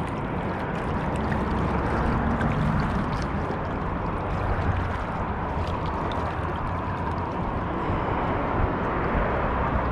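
Steady rushing noise of water lapping and gurgling among shoreline rocks, over a low rumble, with scattered faint clicks.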